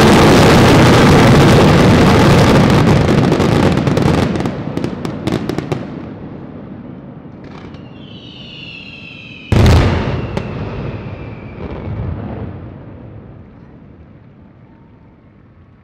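Daytime fireworks finale: a dense, loud barrage of bangs and crackling that thins out after about four seconds into scattered cracks. Then a falling whistle, one loud bang about halfway through, a smaller bang a couple of seconds later, and the sound dies away.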